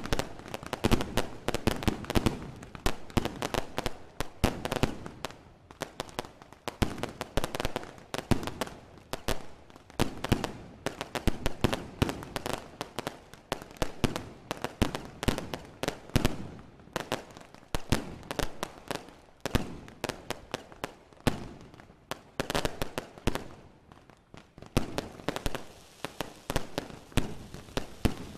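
Fireworks going off in a dense, continuous barrage of sharp bangs and crackling, with louder clusters every second or two.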